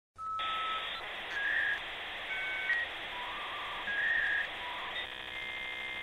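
Electronic intro jingle: a short tune of beep-like notes stepping between pitches over a steady hiss, ending in a buzzy held tone that cuts off suddenly.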